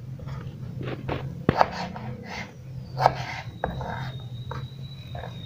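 Kitchen knife knocking and scraping on a wooden cutting board while potatoes are cut into fry strips: a few sharp knocks, the loudest about a second and a half in, with rasping strokes between them over a low steady hum.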